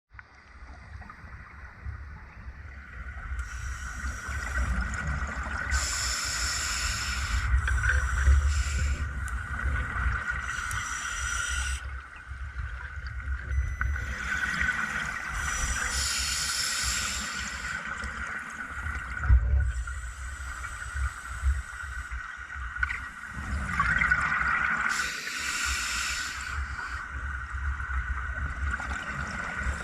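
Scuba diver breathing through a regulator underwater: bursts of bubbling hiss from exhaled bubbles every few seconds, over a steady low rumble and a faint steady hum.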